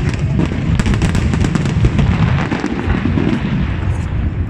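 Fireworks display going off: dense crackling of many small bursts over a continuous low rumble of booms, the crackle thinning out toward the end.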